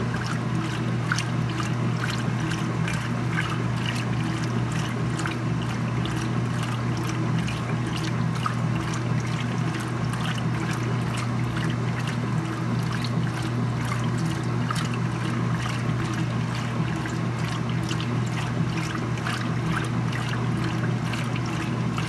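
Speed Queen top-loading washing machine agitating a load of laundry in water: a steady motor hum with water sloshing and trickling in the tub.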